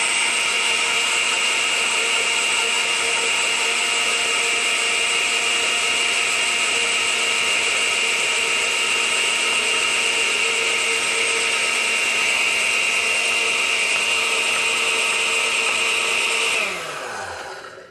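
Countertop blender running steadily at speed while olive oil is poured into the lemon juice, emulsifying the two into a lemon-and-oil dressing. The motor switches off about a second before the end and winds down.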